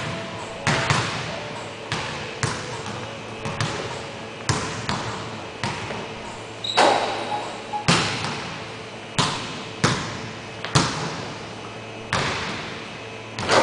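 A basketball bouncing on a hardwood gym floor: sharp bangs at irregular intervals, roughly once a second, each followed by a long echo in the big hall.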